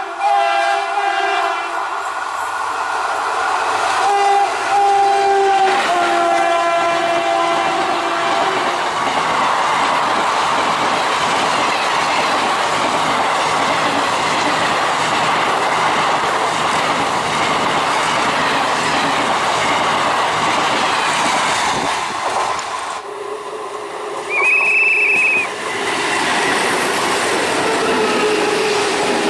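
Indian Railways train horn sounding three long blasts, each a steady chord of two low notes, over the first eight seconds or so. The train then passes with a steady heavy rumble and clatter of wheels over the rail joints. About 24 seconds in, a short high-pitched note sounds once.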